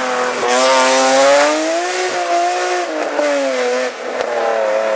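Rally car engine running hard at high revs: its note climbs, holds, then falls, and breaks off briefly about three and again about four seconds in before picking up again.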